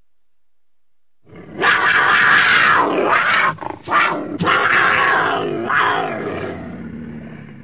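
Cougar (mountain lion) calling: two long, loud calls with a short break between them, the second trailing away.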